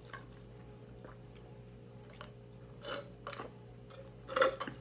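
A person sipping an iced drink through a straw, with soft swallowing and mouth sounds: a few small clicks partway through and a louder gulp near the end.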